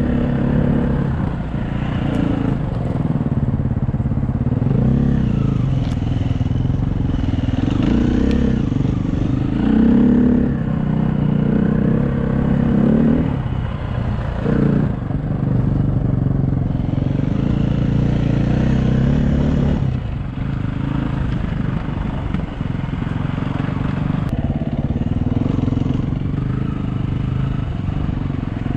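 Dirt bike engine running under way, its pitch rising and falling as the throttle opens and closes, with a few sharp clicks and clatter.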